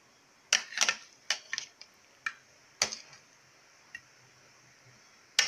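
A spoon clinking and tapping against a bowl: a string of about ten sharp, irregular clicks with quiet between them.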